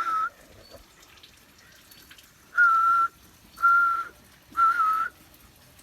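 Person whistling a macuco (solitary tinamou) call to lure the birds: three short, level whistled notes about a second apart.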